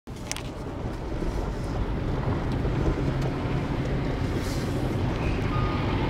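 Steady low rumble and tyre noise from a car driving on a wet, slushy road, heard from inside the cabin. A faint high beep comes near the end.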